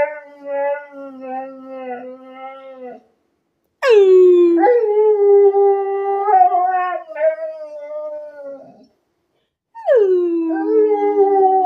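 Alaskan Malamute howling: long drawn-out howls with brief pauses between them, each opening with a steep slide down in pitch and then held with a wavering, warbling tone.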